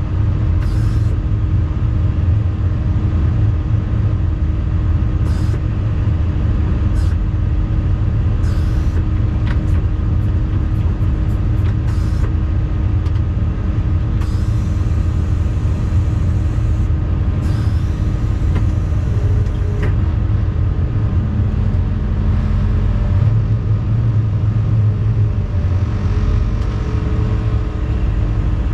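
Volvo EC220E excavator's diesel engine running steadily, heard from inside the cab as a low drone with a constant hum. A few short clicks and two brief hisses come through during the block-laying work, the hisses about halfway through.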